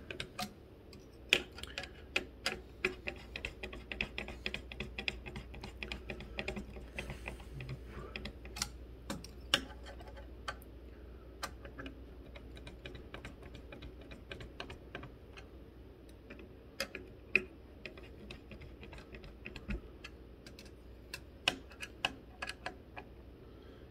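Long screwdriver turning the mounting screws of a Noctua NH-L9x65 low-profile CPU cooler down through its heatsink fins. The result is an irregular run of small metallic clicks and ticks, a few each second, as the cooler is tightened onto the CPU a few turns at a time.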